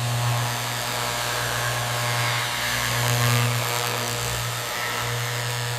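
Paint spray gun spraying clear coat: a steady hiss over a steady low hum.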